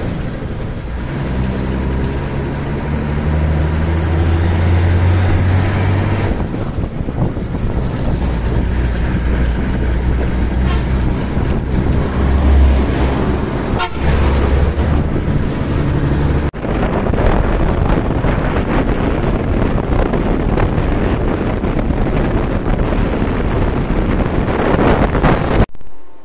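Engine and road noise of a moving bus, heard from a window seat, loud and continuous; another bus passes close alongside about halfway through. The sound cuts off just before the end.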